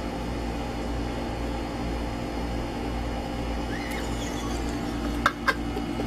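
A steady machine hum made of several low fixed tones. About four seconds in there is a faint short rising chirp, and about a second later two sharp clicks follow in quick succession.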